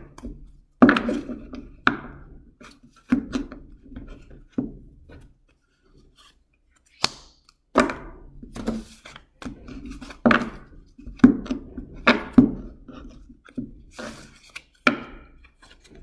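Tarot cards being shuffled and slapped down onto a tabletop: a dozen or so sharp taps and slaps at uneven intervals, with a short pause about six seconds in.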